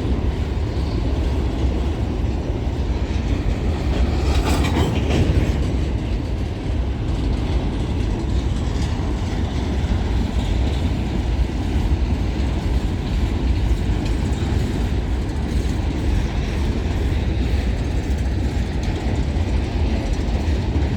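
Freight train of empty grain hopper wagons rolling through a curve: a steady heavy rumble of wheels on rail with clattering from the empty cars. About four seconds in, a brief sharper metallic screech or clank rises above the rumble.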